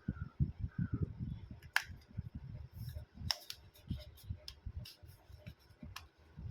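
Small tools clicking and tapping on a phone's parts during a teardown, a scattered run of sharp clicks over low handling thuds.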